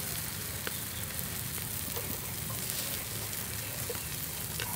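Beef kidney pieces and mushroom slices sizzling on a wire grill rack: a steady hiss with a few small pops.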